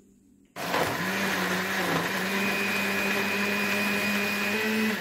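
Anex electric jug blender switching on about half a second in and running steadily at speed, its motor hum held level under a dense whirring noise as it blends a milky iced drink.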